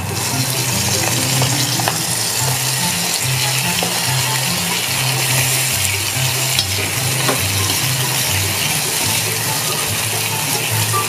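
Whole shrimp sizzling in butter and minced garlic in a coated wok, stirred with a metal spoon that clicks against the pan a few times.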